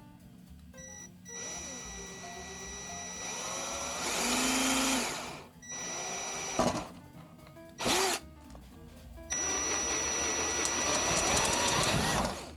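Power drill boring holes in a refrigerator evaporator plate: two long runs of drilling with a steady high whine and the pitch of the cut sliding, plus a couple of short bursts between them. Background music plays underneath.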